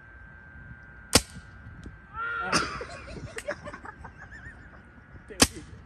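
Two paintball marker shots, each a single sharp pop, about four seconds apart, with a shout between them.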